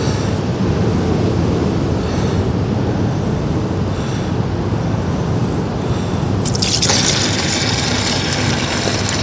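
Old engine coolant pouring in a stream from the frame-tube drain of a Honda VF1000 into a drain tray, starting suddenly about two-thirds of the way in once the drain plug comes free. A steady low rumble runs underneath.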